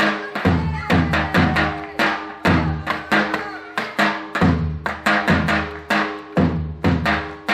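Music with a heavy, steady drum beat, about two hits a second, under sustained instrumental melody.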